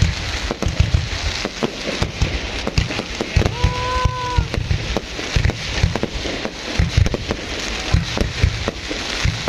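Fireworks display: gold crackle shells bursting overhead, a dense crackling with many sharp bangs and low thumps throughout. A brief steady tone sounds about four seconds in.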